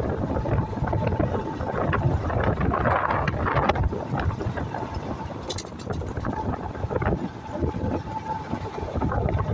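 Wind buffeting the microphone over the steady rumble of a moving vehicle, with a faint steady engine tone.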